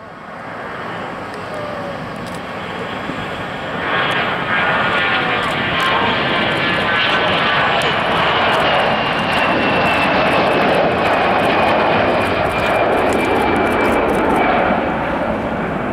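Twin-engine jet taking off: the engine noise swells, jumps to full takeoff power about four seconds in, then holds as a loud, steady jet roar with a high whine slowly falling in pitch.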